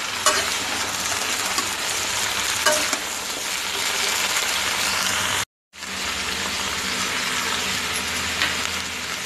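Potato, green bean and cauliflower pieces sizzling as they fry in hot oil in a kadai, with a steel spatula stirring and clinking against the pan now and then. The sound cuts out for a moment just past halfway.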